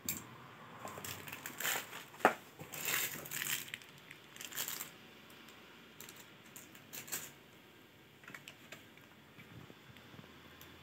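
Hands handling a 1:1-scale AK-47 replica and its packaging: a run of clicks, knocks and scraping, the sharpest click about two seconds in, then fewer, fainter clicks.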